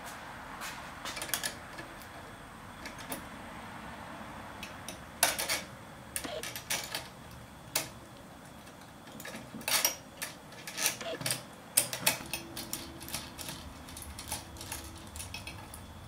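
Irregular metallic clicks and clinks of aluminium tubing, joint brackets and bolts handled and fitted together by hand, with sharper clinks about five seconds in and again around ten to twelve seconds.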